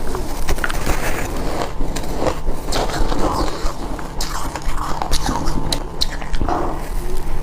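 Crushed and shaved ice being bitten, close to the microphone, in a run of sharp, crackling crunches.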